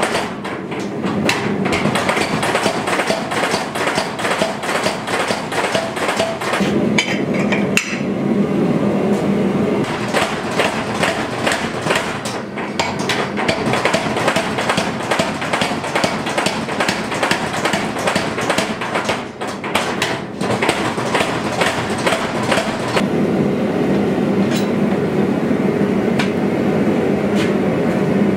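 Power hammer pounding red-hot leaf spring steel in a fast, steady run of blows, several a second, with a few brief pauses as the bar is repositioned.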